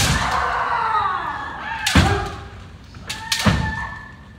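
Kendo sparring: kiai shouts, one long cry falling in pitch and later a held higher cry, with sharp bamboo shinai strikes and stamping footwork on the wooden floor about two, three and three and a half seconds in.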